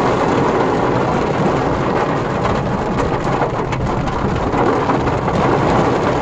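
Heavy rain beating on a car's roof and windscreen, heard from inside the car: a loud, steady rush of rain.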